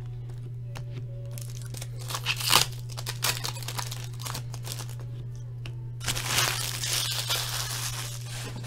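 Foil wrapper of an O-Pee-Chee Platinum hockey card pack being torn open and crinkled in the hands. Scattered rips and crackles give way to a denser run of crinkling about six seconds in, over a steady low hum.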